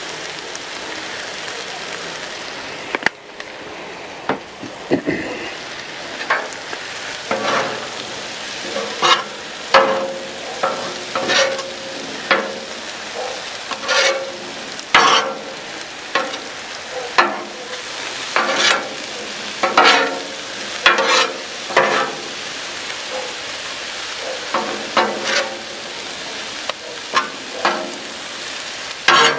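Mushrooms sizzling in oil on a Blackstone flat-top griddle, while a metal spatula scrapes and clacks against the steel cooktop as it turns them. The spatula strokes start a few seconds in and come about once or twice a second, some with a short metallic ring.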